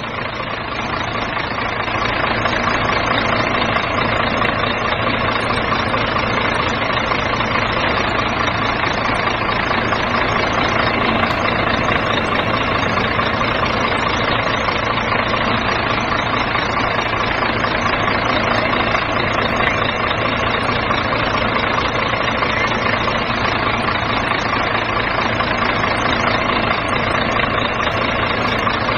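Truck engine running steadily without change, a sound effect rather than anything the plastic toy truck could make.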